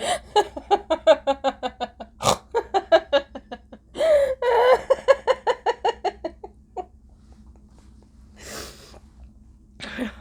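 A woman laughing hard in quick repeated bursts, the pitch sliding down through each run, with loud in-breaths between runs; the laughter dies away about seven seconds in, leaving a couple of breaths.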